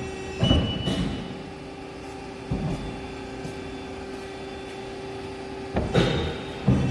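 Hydraulic press brake running idle strokes: the hydraulic pump hums steadily while the ram cycles up and down empty, with heavy clunks each time a stroke starts or stops, about five in all. A brief high whine comes with the first clunks.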